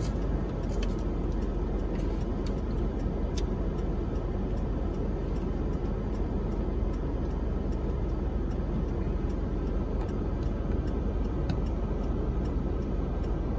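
Steady low rumble of car cabin noise, the car sitting at a stop and then moving off, with scattered faint ticks.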